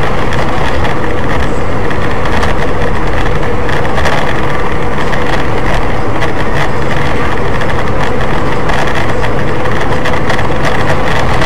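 Loud, steady noise of a moving car, engine and road rumble with a rushing hiss over it, as picked up by an in-car dash camera.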